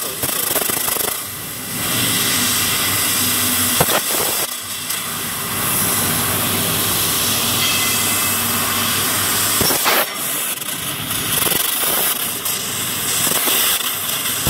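Fiber laser cutting machine cutting thin sheet metal: a steady hiss of assist gas blowing through the cutting nozzle, dipping briefly now and then, with two sharp pops about four and ten seconds in.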